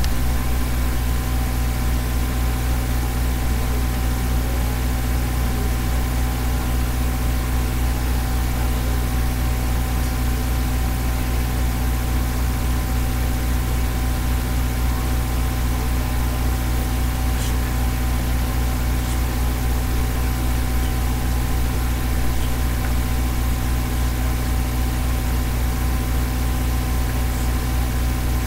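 A steady low hum made of several fixed pitches that hold unchanged throughout.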